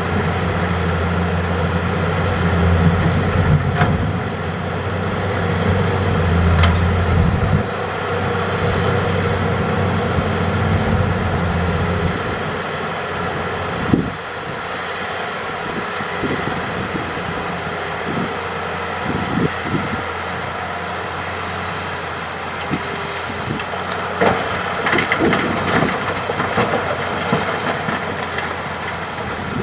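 Hitachi hydraulic excavator's diesel engine working hard for the first dozen seconds, then easing to a lower, steadier running, with a sharp knock about halfway and scattered knocks later on.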